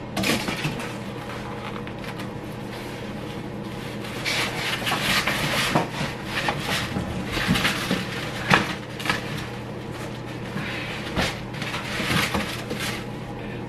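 Cardboard box and foam packing being handled while a flat-pack dresser is unpacked: rustling, scraping and scattered knocks of panels against the box. A low steady hum runs underneath.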